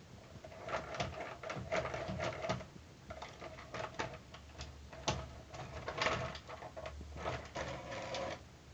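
Electric drive motor and plastic gears of a New Bright radio-controlled Hummer toy truck whirring in four short bursts, with clicks and rattles between them.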